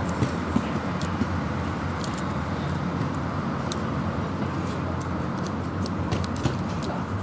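Steady low background rumble outdoors, with a few faint small clicks and taps from the plastic parts of a Transformers Prime Wheeljack action figure being moved by hand.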